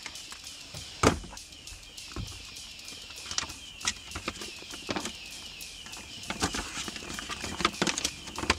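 Rummaging in a car's glove box, with a sharp knock about a second in, then a folded paper road map being pulled out and opened, crinkling and rustling in irregular crackles.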